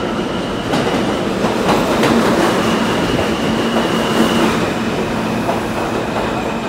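A New York City subway train pulls into the station alongside the platform. The wheels clatter over the rails under a thin, high steady whine, loudest in the middle as the cars go by, then easing slightly near the end.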